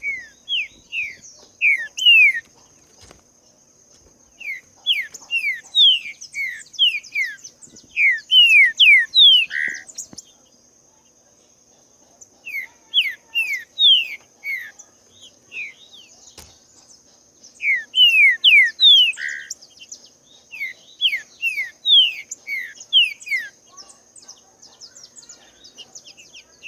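Green-winged saltator (trinca-ferro) singing: loud phrases of quick, downward-sliding whistled notes, four runs with short pauses between. A steady high insect drone continues underneath.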